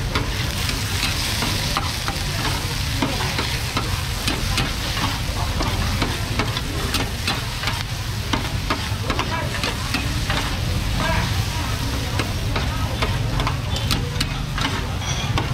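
Noodles and vegetables sizzling in a large flat wok, with a metal spatula and tongs scraping and clacking against the pan in frequent short clicks over the steady hiss of the frying. A steady low rumble runs underneath.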